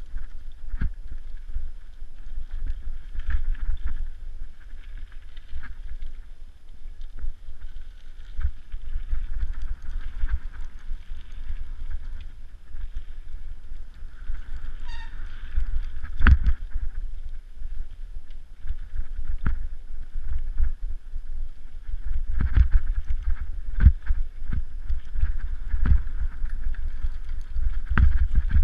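Mountain bike riding over a rough dirt and rock trail: a steady wind rumble on the camera microphone with frequent knocks and rattles as the bike jolts over roots and rocks, a few of them hard hits.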